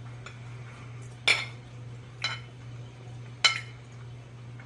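Metal cutlery clinking against a dish three times, each a sharp clink with a short ring, over a steady low hum.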